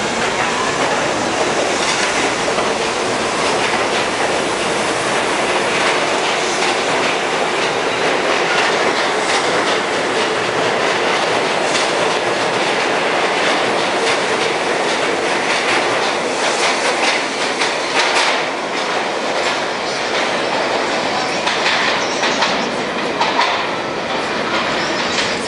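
R68 subway train departing an underground station and running past at speed. Its wheels make a steady rumble and clatter over the rail joints, with some wheel squeal.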